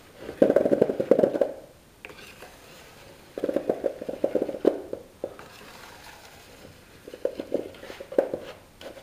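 A hacksaw blade scraping wet, primed firework stars off a board into a pan: three rough, scratchy scraping passes, each a second or two long, with short pauses between them.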